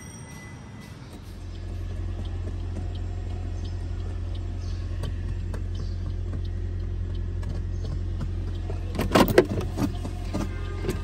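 Low steady hum of a car heard from its cabin, growing louder about a second in and then holding. About nine seconds in comes a short loud clatter of knocks as the glovebox is opened and handled.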